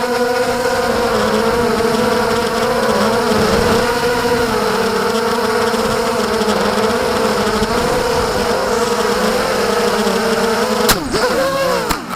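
Racing quadcopter's brushless motors and propellers whining, a steady buzz whose pitch wavers up and down with the throttle. Near the end a few sharp clicks come and the whine swoops steeply down in pitch.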